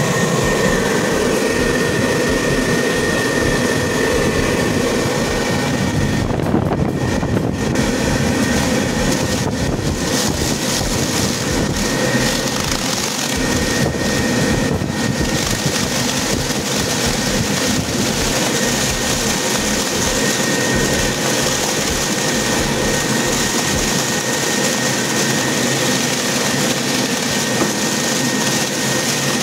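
A machine running steadily: a constant whirring noise with a thin, high, steady whine over it.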